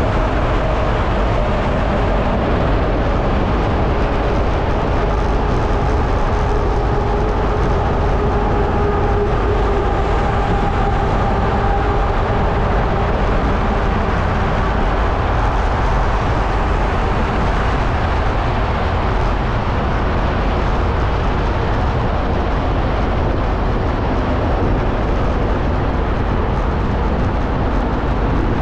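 Steady rushing noise of riding a bicycle through a road tunnel: wind on the handlebar camera's microphone mixed with the echo of passing traffic. Faint engine tones drift slowly in pitch during the first half.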